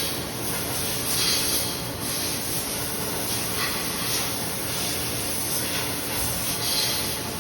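Taiyo Koki CVG-13 grinding machine grinding FC250 cast iron: a steady hissing noise that swells slightly a few times.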